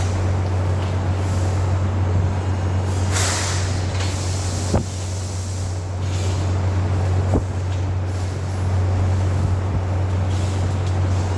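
Machine running with a steady low hum, a short hiss like escaping air about three seconds in, and a few sharp knocks.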